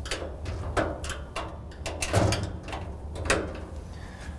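Flat-blade screwdriver prying the hinge pins down on a Rittal TS-8 steel cabinet door: an uneven run of sharp metal clicks and knocks, the loudest about two seconds in.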